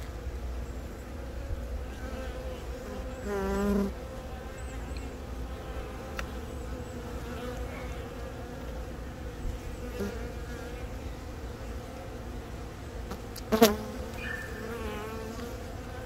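Honeybees buzzing steadily over an open brood frame, with a louder, wavering buzz briefly about three and a half seconds in. A single sharp click sounds near the end.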